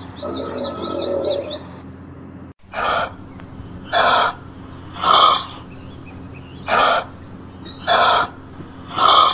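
A short animal call, repeated six times at roughly one-second intervals. It follows a stretch of high bird chirping that stops abruptly about two and a half seconds in.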